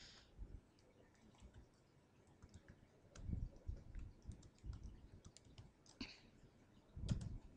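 Faint clicking of computer keyboard keys as a web address is typed, irregular single keystrokes, with a louder pair of knocks near the end.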